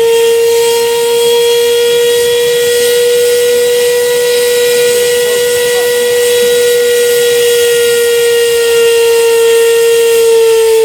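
A high-speed fan or turbine spinning at constant speed, a loud steady whine held at one pitch over a hiss of rushing air, while the homemade jet engine has not yet lit.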